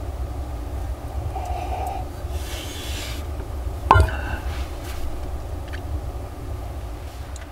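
Blizzard wind giving a steady low rumble around the log cabin, with one sharp knock about four seconds in.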